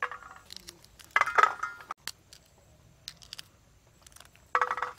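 Shelled green peas dropping into a steel plate, making ringing metallic clinks: the loudest about a second in and another near the end, with faint snaps of pea pods being split open in between.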